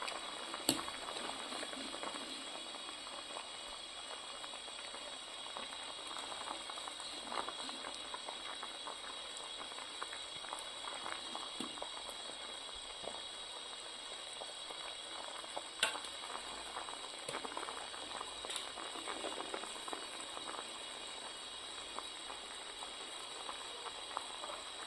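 Whole figs in sugar syrup boiling in a pot for jam, the foamy surface bubbling steadily, with a few sharp clicks, the loudest about two-thirds of the way through.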